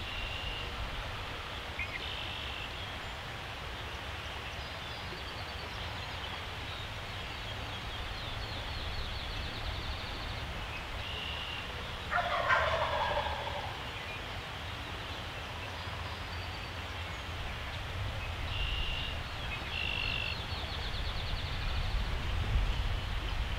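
A wild turkey gobbles once about halfway through, a loud rattling call that drops in pitch. Short high bird notes and a trill come and go over a steady low rumble of wind.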